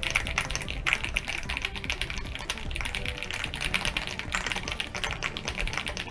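Valkyrie VK99 mechanical keyboard with a plastic case and factory-lubed switches, typed on fast with both hands: a dense, continuous run of key clacks.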